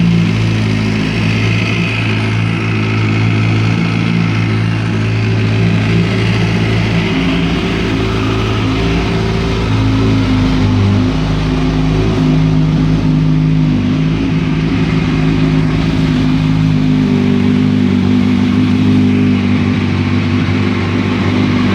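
2005 Kawasaki ZX-6R inline-four engine running, its engine speed shifting up and down a few times between steady holds. The owner links the engine noise to the cam chain tensioner or valves.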